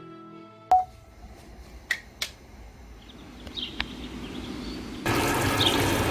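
A few sharp clacks of kitchen items being handled, then, about five seconds in, a tap turned on and water running steadily.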